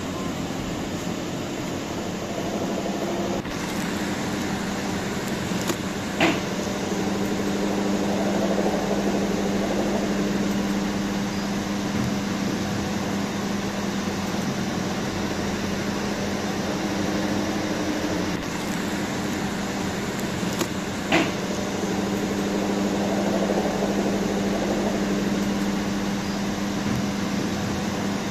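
A steady mechanical hum with a low drone under it, broken by a sharp click about six seconds in and again about 21 seconds in; the same sequence repeats after about 15 seconds.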